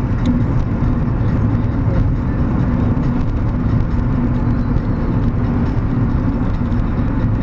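Car driving at a steady road speed, heard from inside the cabin: a constant low rumble of engine and tyre road noise.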